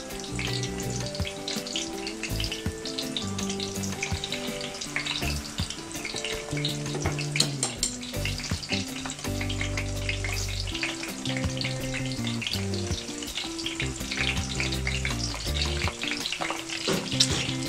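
Tempura-battered vegetables deep-frying in hot oil in a pan, a steady crackling sizzle. Background music plays underneath.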